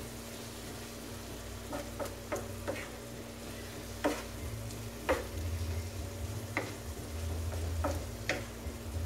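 A wooden spatula scrapes and knocks against a flat tawa as chicken liver masala is stirred and fried, with a light sizzle. Sharp taps come irregularly, about nine in all. The liver is at the bhuna stage, being fried until the raw taste of the spices is gone.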